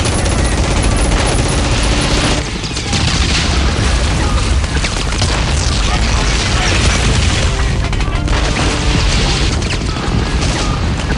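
Battle sound effects: dense, continuous gunfire and explosions with music mixed in, easing briefly about two and a half seconds in.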